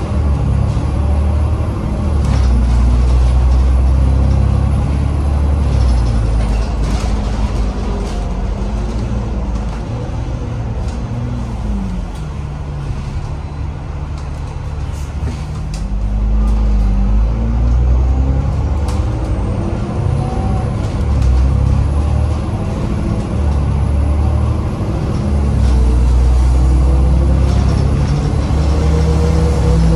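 Alexander Dennis Enviro 500 MMC double-decker bus's Cummins diesel engine running as the bus drives, heard from inside the cabin. The engine note drops and settles lower about twelve seconds in, then climbs again as the bus accelerates from about sixteen seconds. A thin high whine rises and falls above it.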